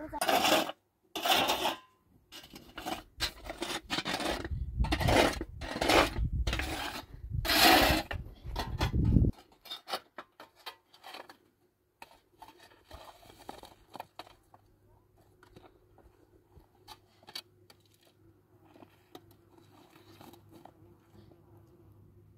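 Hand scraping at a stone hearth: a run of loud scraping strokes, one or two a second, for the first nine seconds or so, then lighter, sparser scrapes and small clicks.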